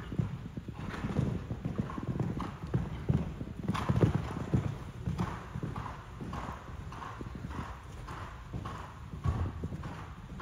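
Hoofbeats of a horse cantering on sand footing: a steady rhythm of dull thuds, loudest about four seconds in.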